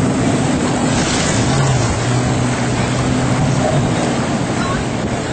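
Jet ski engines running steadily at speed, a constant drone mixed with rushing water and wind noise.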